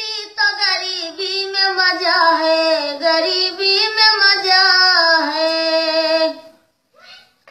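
A woman singing solo and unaccompanied in a high, strong voice, long phrases with gliding pitch; she breaks off about six and a half seconds in, briefly.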